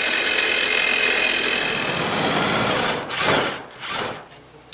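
A handheld power tool running steadily, then let off just before 3 seconds in and given two short bursts before stopping.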